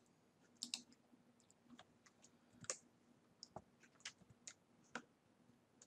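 Near silence broken by faint, irregular clicks, about a dozen scattered through, over a faint steady hum.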